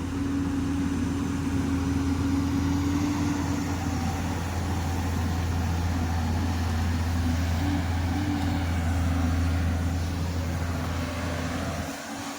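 Diesel engine of a heavy earthmoving machine running steadily with a low drone, which drops away suddenly near the end.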